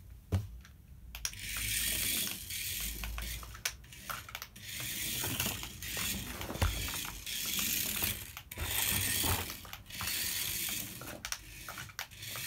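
The tiny electric motor and gears of a 1/64 scale Pioneer mini RC Jeep buzzing as it drives, in repeated bursts of a second or two with short breaks. The on/off pattern comes from its non-proportional control: each push is full throttle or nothing.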